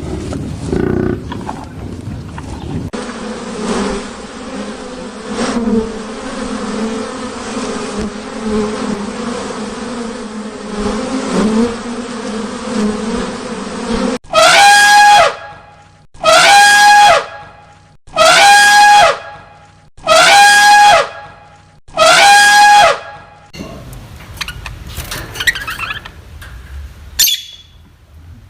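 A steady insect buzz, like a bee or fly in flight, runs for about ten seconds. It is followed by five loud, evenly spaced calls from an animal, each about a second long.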